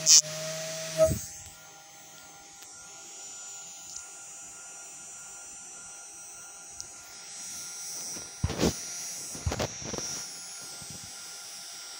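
Small DC hobby motor spinning a red plastic propeller on a homemade fan: a steady thin whine. Sharp knocks and rattles come at the start and again about two-thirds of the way through.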